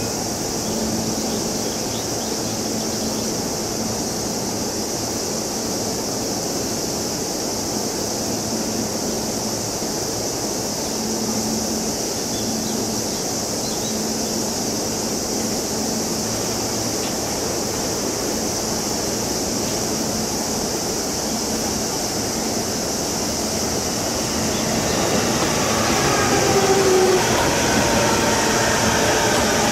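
Steady rumble of electric trains on the line. About twenty-five seconds in, an EH500 electric freight locomotive comes closer and gets louder, its motors whining in several tones that slowly fall in pitch.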